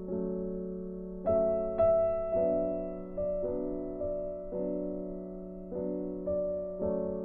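Soft background piano music: slow chords struck about once a second, each ringing and fading before the next.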